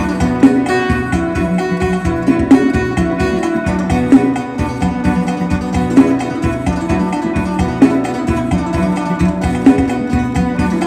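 Isan phin, a plucked Thai lute, playing a lively lam sing melody over a steady low beat, with strong accents about every two seconds.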